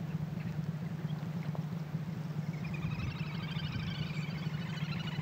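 A bird's rapid trill of many short high notes, starting a little under halfway in and running to the end, over a steady low background rumble.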